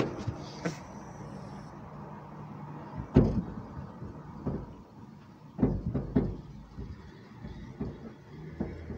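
Several separate dull clunks and knocks from a car's rear body and trunk being handled, the loudest about three seconds in and a quick group of them about six seconds in.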